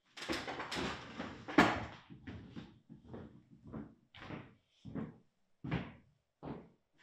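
A wooden dining chair scraping and knocking on a hardwood floor as someone stands up, with one sharp knock, then footsteps on the hardwood floor, about one every two-thirds of a second.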